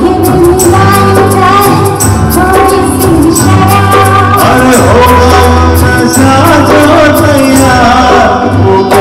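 Hindi film song performed live: male and female singers over a band with a steady beat.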